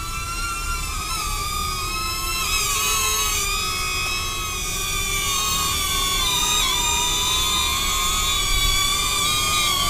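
DJI Neo mini quadcopter's propellers whining as it flies, several close pitches wavering up and down together as the rotors change speed.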